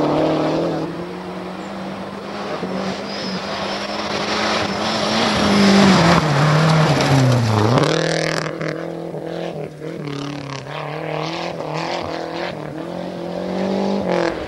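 Rally car engine held at high revs on a gravel stage, passing close by; about seven seconds in the revs dip sharply and climb again as the car powers away, its engine fading. Near the end another engine rises.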